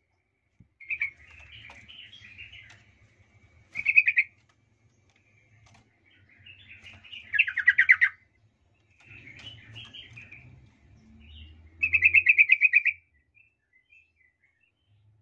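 Yellow-vented bulbul calling in a series of chattering bursts, with the loudest near the middle and a fast, even run of notes near the end. Its agitated chatter serves as a lure call to provoke other bulbuls.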